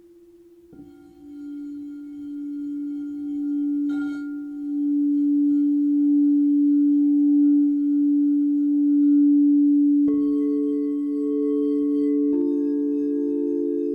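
Crystal singing bowls ringing. One is sounded about a second in and its low, slowly pulsing tone builds over several seconds, with a light tap partway through. Two higher bowls join near the end, layering their sustained tones over it.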